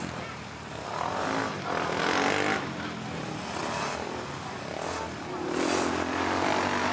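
Racing quad (ATV) engine revving up and backing off repeatedly on a dirt motocross track. The louder swells come about a second in, around two seconds in, and near the end.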